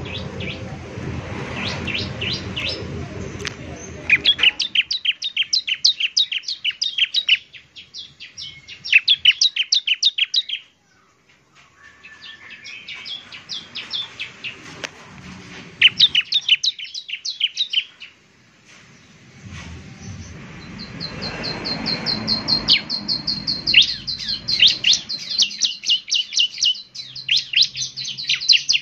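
Bar-winged prinia (ciblek) singing bursts of rapid, sharp repeated chipping notes, each burst lasting a few seconds with short pauses between; about two-thirds through, one run becomes an even, high trill. A low rumble sits under the song at the start and again about two-thirds through.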